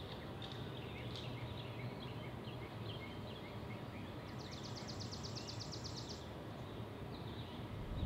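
Small birds chirping over a steady low background hum, with one fast, even trill of about eight or nine notes a second lasting about two seconds around the middle.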